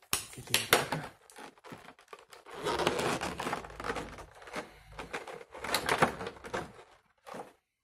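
Stiff clear plastic packaging crackling and clicking in the hands as it is pried open, in irregular sharp snaps with a denser run of crinkling a few seconds in.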